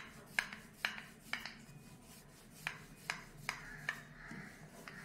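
Wooden rolling pin rolling out paratha dough on a stone counter: soft rubbing strokes with a series of light clicks about twice a second, pausing briefly about a second and a half in before resuming.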